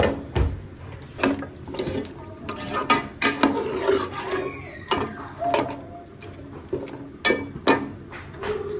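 Metal spatula stirring chicken korma in an aluminium pot, knocking and scraping against the pot's sides and bottom in irregular clicks.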